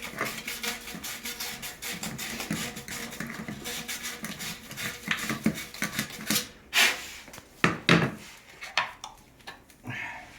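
Quick rubbing strokes on plastic pipe. About six seconds in they give way to a few sharp knocks and clacks as the pipe pieces are handled.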